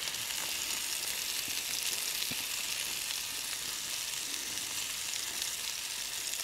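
Steady sizzle and fine crackle of food frying in a pan on a gas burner. Under it, a few soft knocks and scrapes from a wooden pestle working mashed potato through a conical stainless-steel sieve.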